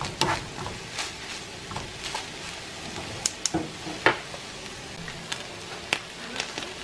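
Chopped chicken and Italian turkey sausage sizzling steadily in their unstrained fat in a nonstick frying pan, with a few sharp clicks and scrapes from a silicone spatula stirring the meat.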